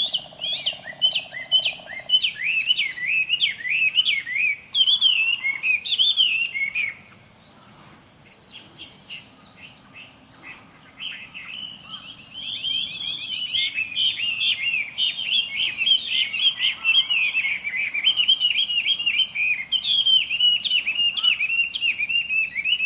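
Chinese hwamei (Garrulax canorus) singing its loud, rapid, varied whistled song of rising and falling phrases. It breaks off about seven seconds in and starts again about four seconds later, running on to the end.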